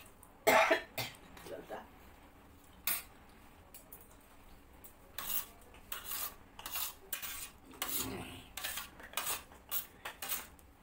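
Metal spoons scraping and clinking against stainless steel plates while eating soft porridge. There is one loud clink about half a second in, then a run of quick scrapes and taps from about five seconds on.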